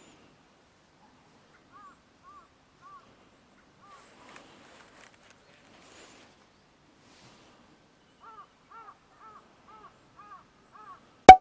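Faint crows cawing: a few scattered caws, then a run of about seven, roughly two a second, near the end. A single loud sharp click comes right at the end.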